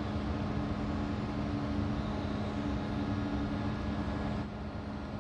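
Steady low mechanical hum of a large car ferry's machinery while berthed, with an even droning tone over a rumble and hiss. The hiss eases slightly about four and a half seconds in.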